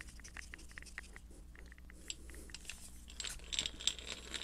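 Faint ticks and rubbing as the wooden handle is screwed onto the eggbeater drill's threaded metal shaft, then, from about three seconds in, several sharper small metallic clinks with a brief ring from the drill's steel chuck and bit being handled.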